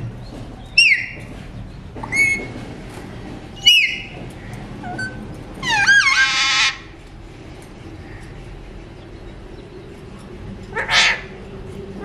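Alexandrine parakeet calling: short pitched calls about every one and a half seconds, then a longer run of rapid rising-and-falling notes about six seconds in, and a harsher squawk near the end.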